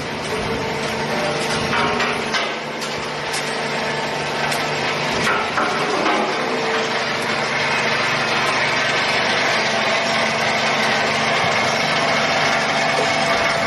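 Waste car engine crusher running steadily. Crushed metal pieces drop onto its spring-mounted vibrating steel feeder tray in scattered clicks and rattles.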